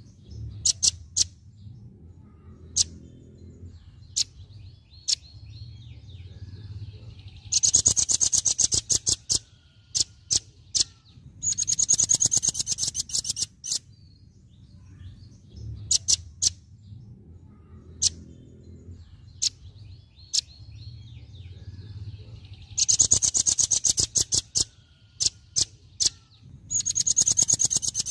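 Velvet-fronted nuthatch song: scattered sharp, high single chirps broken by very rapid rattling trills, the rapid-fire 'tembakan' phrase, each lasting about two seconds. It comes four times, the last cut off at the end.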